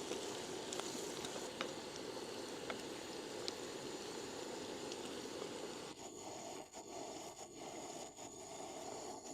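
Morel mushrooms with garlic frying in butter in a pan, a steady sizzle with a few faint ticks.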